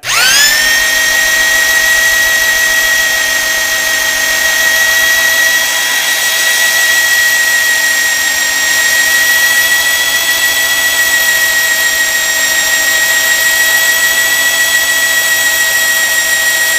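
Electric drill spinning a Ford 400 V8's oil pump through the distributor hole to prime the rebuilt engine's oil system. It starts at once, its whine rising over the first half second as it spins up, then holds a steady high whine under the load of the pump building oil pressure.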